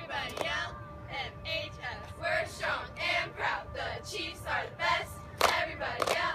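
Cheerleading squad shouting a cheer in unison, in short rhythmic calls about twice a second, with a few sharp hand claps near the start and near the end.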